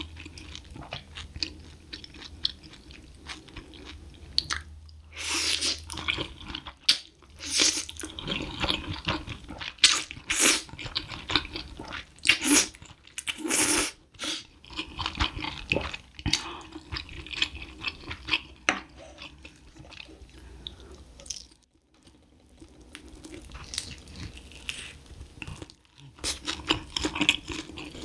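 Close-miked eating of spicy stir-fried instant noodles: wet chewing throughout, broken by several louder slurps.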